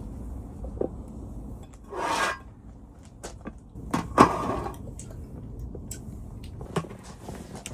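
Handling noises of food preparation: scattered clicks and knocks of utensils and containers, with a short rustle about two seconds in and a sharp knock and another rustle about four seconds in, over a low steady hum.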